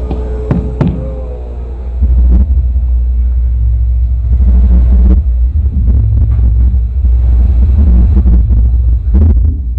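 Very loud, deep bass rumble from a live band through the venue's sound system, rising sharply about two seconds in and holding, with a few sharp knocks in the first second.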